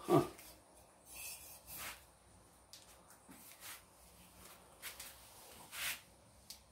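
Spoked aluminium wheel of a Buffalo 14-inch band saw, set spinning by hand and freewheeling on its bearing. A brief sound falling in pitch as it is pushed off at the start is the loudest part, followed by soft, irregular swishing as it turns.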